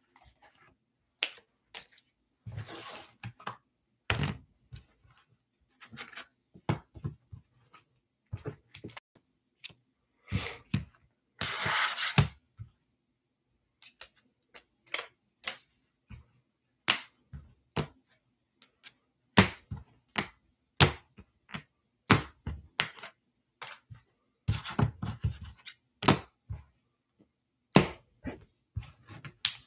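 Irregular clicks, taps and short scraping rustles from handling trading cards and hard plastic top loaders, with a few sharper knocks against the table.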